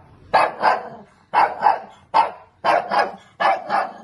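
Shih Tzu barking sharply and repeatedly, mostly in quick pairs of barks, about nine in all.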